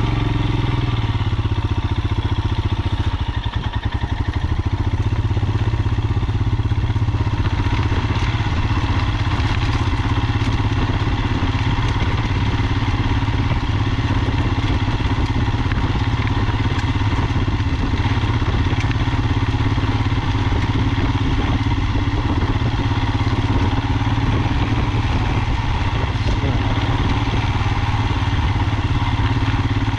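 Royal Enfield Himalayan motorcycle's single-cylinder engine running steadily as the bike rides along a gravel road, with a brief drop in level about three seconds in.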